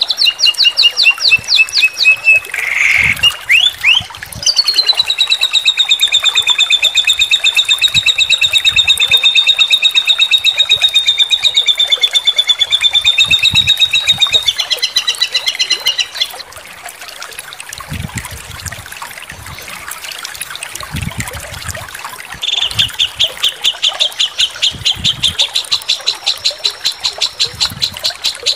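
Songbird singing rapid, high trills of fast repeated notes: a few short phrases, then one long trill lasting about ten seconds. After a quieter stretch, another fast trill starts near the end.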